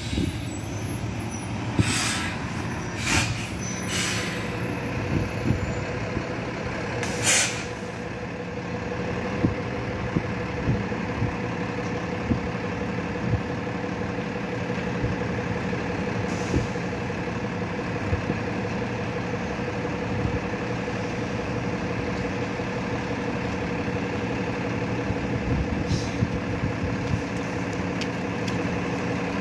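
Bus engine idling steadily, with four short air-brake hisses in the first eight seconds or so.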